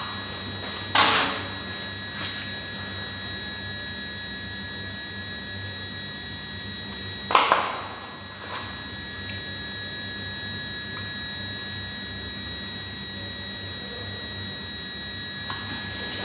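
A few short metallic clacks as the valves are handled in the Dodge Nitro's aluminium cylinder head: a loud one about a second in, another about seven seconds in, and two fainter ones, over a steady workshop hum.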